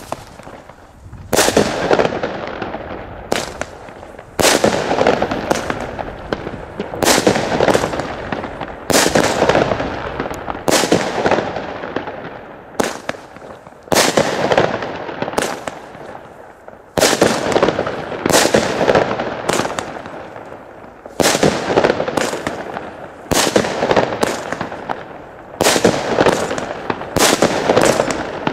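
Kalimbo 16-shot consumer firework battery firing its shots in sequence. Each shot is a sharp bang, often closely followed by a second one, that fades out over about a second. The bangs come roughly every one and a half to two seconds.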